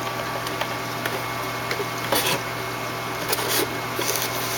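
Cardboard shipping box and packaging being handled, with a few brief rustles and scrapes as the box is closed, over a steady low hum.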